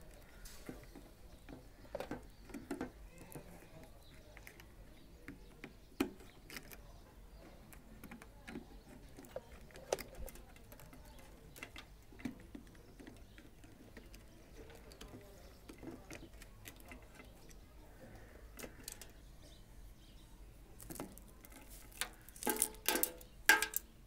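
Scattered faint clicks and taps of a screwdriver and wire terminals as the connections on an electric water heater's thermostats are loosened, a few seconds apart, with a quick run of louder clicks near the end.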